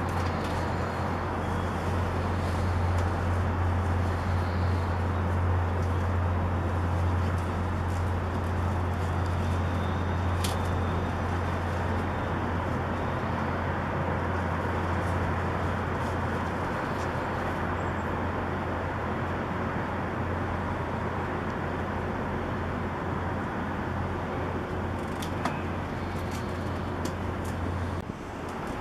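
City traffic noise as a steady wash, under a constant low hum that stops near the end. A few faint clicks.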